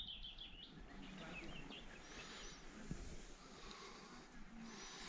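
Faint outdoor ambience: a bird's quick repeated high chirps end about half a second in, then only a few faint bird notes over a low hiss.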